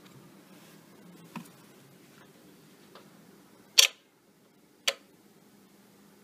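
Clear plastic coin capsule clicking as it is handled and set down on a wooden table: a light click, then two sharp clicks about a second apart, the first the loudest.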